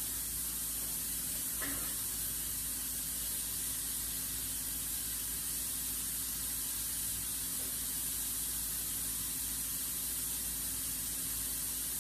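Steady hiss with a faint low hum, unchanging throughout: background noise of the workshop and recording.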